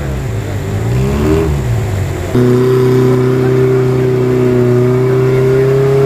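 Off-road 4x4's engine revving, its pitch dropping and rising, then jumping to a louder, steady high rev held from about two and a half seconds in.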